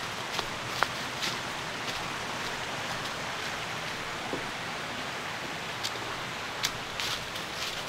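Steady rushing outdoor ambience, an even hiss, with a few soft clicks at irregular moments, the clearest near the start and a cluster near the end.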